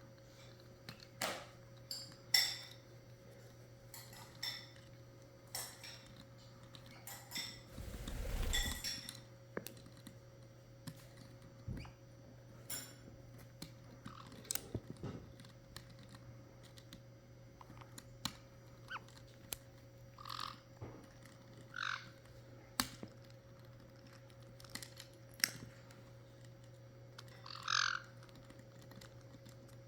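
Caique parrots pecking and biting at an object: scattered sharp clicks and taps, a longer rustle about eight seconds in, and a few short squeaks in the last third, over a steady low hum.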